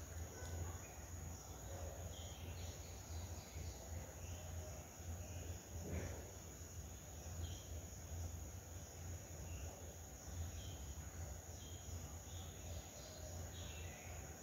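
Quiet background: a steady low hum and a thin high whine, with faint scattered chirps and one soft knock about six seconds in.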